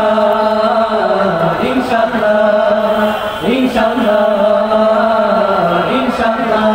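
Three young men singing a Bengali Islamic song (gojol) together into handheld microphones, in long drawn-out held notes that bend from pitch to pitch.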